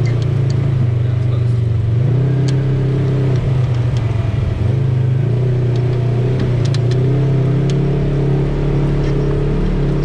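Off-road vehicle engine running steadily as it drives, a low drone that swells a little now and then, with scattered light clicks and rattles.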